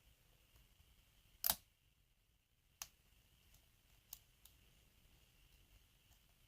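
Faint, sparse clicks of a lock pick and tension wrench working the pins of an Abus 83AL/45 padlock, with one sharper click about a second and a half in and a couple of smaller ones later.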